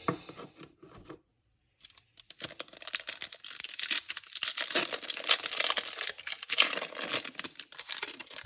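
Foil wrapper of a Topps Chrome baseball card pack being torn open and crinkled by hand, a dense crackling rustle starting about two seconds in, after a few faint knocks.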